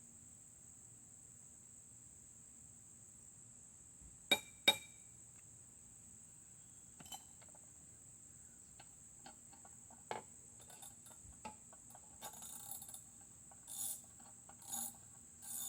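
Steady high chirring of crickets throughout, with two sharp metallic clinks about four seconds in and scattered small clicks after. Near the end a ratchet wrench is worked in short strokes about once a second, loosening the bolt that holds a Briggs & Stratton Classic mower's gas tank.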